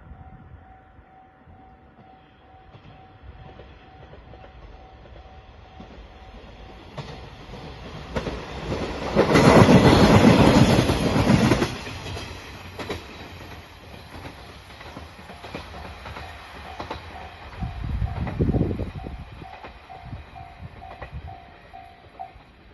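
A train passes a railway level crossing, its noise swelling to a loud rush for a few seconds in the middle with wheels clacking over the rails, and a second, shorter swell later. The crossing's warning bell rings in a steady repeating pattern at first and again in the second half.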